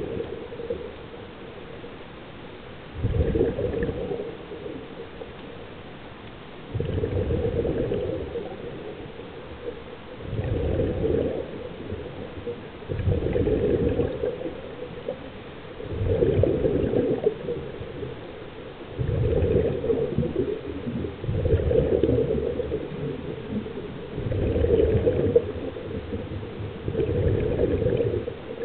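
Scuba diver breathing through a regulator underwater: a bubbling exhalation of a second or so comes about every three seconds, with quieter stretches between.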